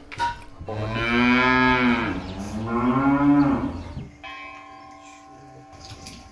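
A cow moos twice, two long calls each rising and then falling in pitch, the second louder at its end. After them comes a fainter, steady ringing tone.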